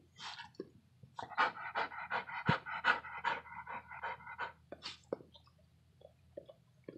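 Pit bull in labour panting rapidly, about four or five breaths a second, for a few seconds, then settling to a few faint breaths.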